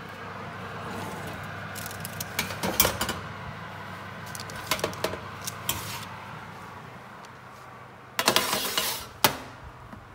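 Kitchen handling sounds: scattered light clinks and knocks over a steady hum, with a louder scraping rustle lasting about a second near the end.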